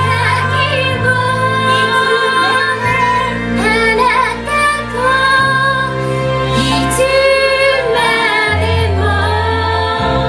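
Several women singing a song together into microphones over recorded backing music with sustained bass notes.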